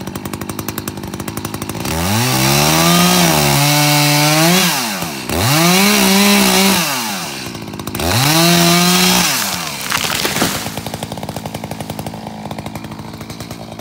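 Chainsaw idling, then revved hard through three long cutting passes of a back cut into a standing tree, its pitch rising at the start of each pass and dropping back at the end. About ten seconds in come a few sharp cracks as the tree breaks over its hinge and falls, and the saw goes back to idling.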